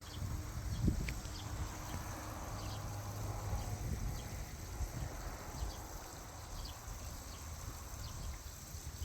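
Low, deep rumble of distant thunder rolling, heaviest in the first few seconds and easing after about five seconds, with faint short high chirps over it.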